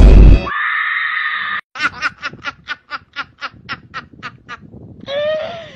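A loud burst of noise at the very start, a held high tone, then a rapid run of laughter: about a dozen evenly spaced bursts, around four a second.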